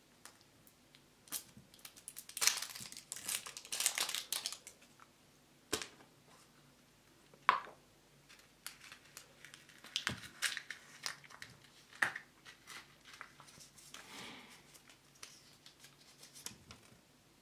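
Hands tearing the plastic wrap off a toy surprise egg and crinkling the cellophane packet and paper leaflet inside: irregular tearing, crackling and sharp clicks, busiest a few seconds in.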